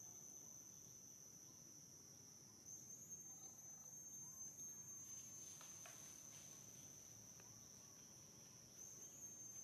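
Faint, steady high-pitched trilling of insects, such as crickets or cicadas, in the background, growing a little louder about three seconds in and again near the end.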